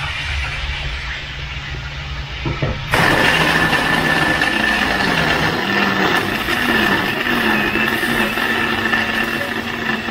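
Electric blender starting up about three seconds in and running steadily with a high whine, grinding yellow and red chilies into a paste.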